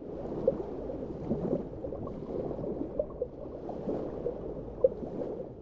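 Underwater water sound: a steady gurgling wash of bubbles with many small irregular pops.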